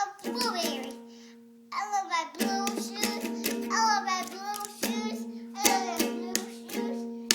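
A toddler singing in a high voice to a strummed acoustic guitar. One chord rings out just after the start, then steady, repeated strumming begins about two and a half seconds in.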